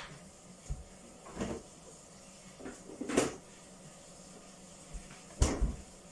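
Refrigerator door opened and then shut with a thud near the end, with a few lighter knocks before it.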